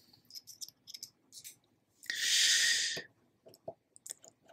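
Faint clicks and taps of a precision screwdriver being handled and set onto a screw in a metal base plate, with one short breath a little after two seconds in, the loudest sound.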